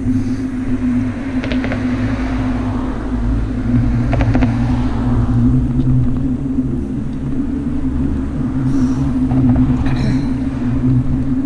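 Steady low hum and rumble of riding a bicycle along a paved path, from tyre noise and wind on the bike-mounted camera, with a few brief ticking rattles.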